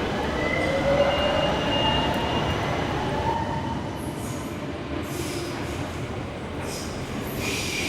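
Train running on its rails: a steady rumble with thin, high wheel squeals over the first few seconds, then short hissing sounds in the second half.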